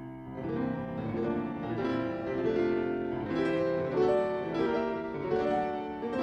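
Background music led by piano, with notes struck about twice a second over a held chord.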